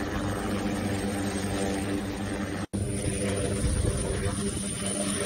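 Air ambulance helicopter running on the ground with its rotors turning: a steady turbine and rotor drone over a low rumble. The sound cuts out for an instant about halfway through.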